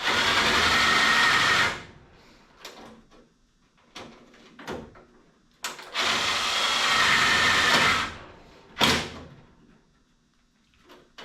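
Power drill run in two bursts of about two seconds each, with knocks and clicks of handling between them.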